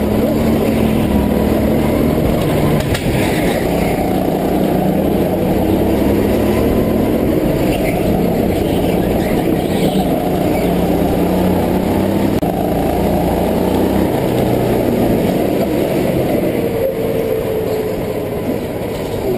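Go-kart engine running under way, heard from on board the kart, its pitch rising and falling with the throttle through the corners and dropping near the end as the kart slows.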